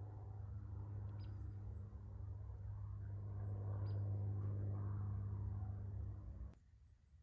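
A steady low hum, cutting off abruptly about six and a half seconds in, with two short high chirps over it.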